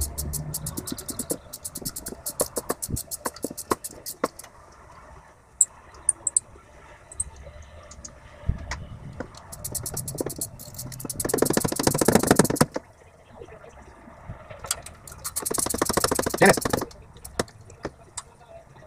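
Socket ratchet clicking in quick runs as bolts on top of the cylinder head are worked loose. A steady train of clicks at the start, then two spells of very fast ratcheting later on, each about two seconds long.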